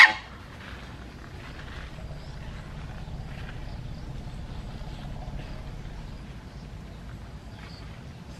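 Outdoor ambience: a brief sharp sound right at the start, then a low steady rumble with faint rustles.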